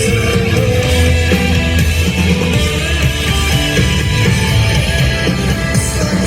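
Rock band playing live: electric guitars, bass and drums in a stretch without singing.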